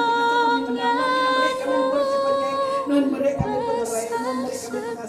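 A small group of voices singing a slow hymn unaccompanied, in long held notes.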